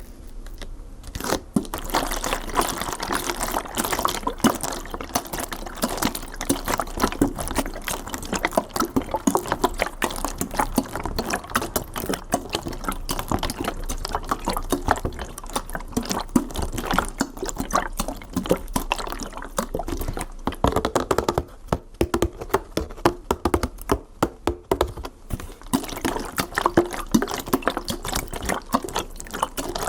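Water pouring and bubbling: a dense, continuous run of small pops and gurgles that starts about a second in.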